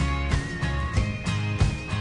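Background music with a steady beat and a held melody line that steps up and down in pitch.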